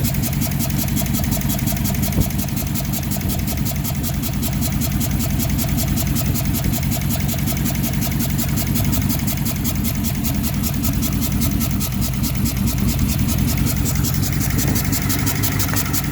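2006 Dodge Charger's 5.7-litre HEMI V8 idling on one bank only, with the coil packs on the other side disconnected, so half its cylinders are not firing. It runs steadily with a fast, even ticking over the engine sound and a single sharp click about two seconds in.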